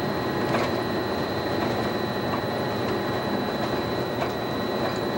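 Walt Disney World monorail running at speed, heard from inside its front cab: a steady rolling noise with a constant high whine and a few faint clicks.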